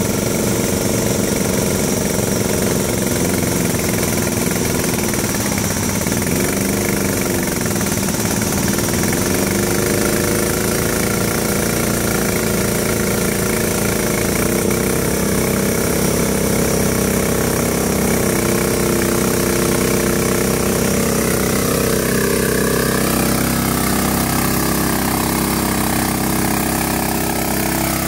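Lawn tractor's small engine running under load in deep mud, its pitch rising and falling several times as the throttle is worked.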